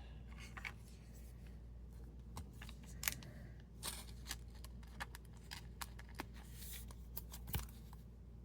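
Faint scattered clicks and brief swishes of hockey trading cards being handled and turned over.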